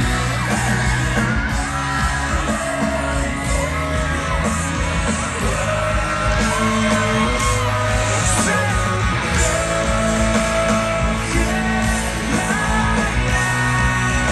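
Live rock band performing: steady bass and guitar under a lead voice singing loudly.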